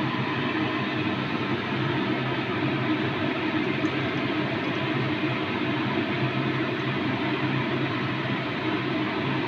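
Steady kitchen background noise, an even hiss with a low hum, while milk is poured from a steel bowl into a kadai of grated carrots fried in ghee; the pour makes no distinct splash above the hiss.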